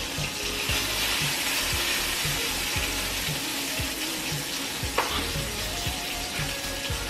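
Sausage frying in a pan in its own grease, a steady sizzle with one sharp click about five seconds in. A steady low beat of background music runs underneath.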